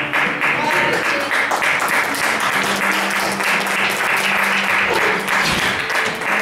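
Audience applauding, with many hands clapping steadily over music.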